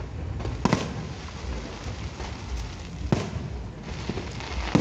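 Aerial fireworks exploding: a sharp bang under a second in, another about three seconds in and the loudest right at the end, with crackling in between.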